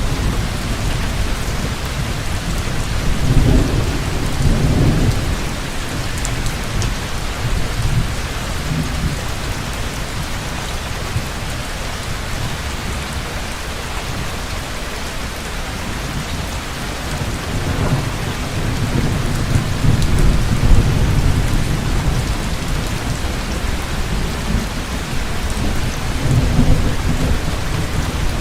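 Heavy rain pouring steadily, with low rolls of thunder rumbling up three times: a few seconds in, again past the middle, and near the end.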